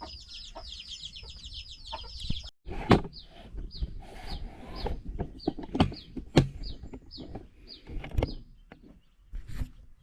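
Chicks peeping: a fast, steady run of high, falling peeps that breaks off abruptly about two and a half seconds in. After that come single peeps every half second or so, among sharp knocks and clatter, the loudest knocks about three, six and eight seconds in.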